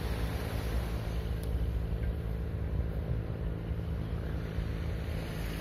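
Steady low rumble with small waves washing onto the shore.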